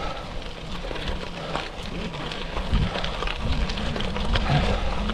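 Gravel bike tyres rolling over loose gravel, a steady crunching crackle of many small stone clicks.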